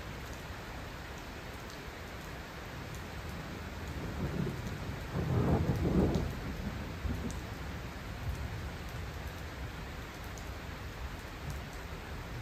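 Steady rain with a few faint drips, and a low roll of thunder that swells about four seconds in, peaks near the middle and fades away.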